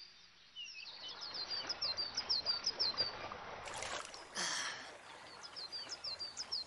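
Nature ambience: small birds chirping in quick, repeated short calls over a soft, steady water-like hiss, with a brief rush of noise about four seconds in.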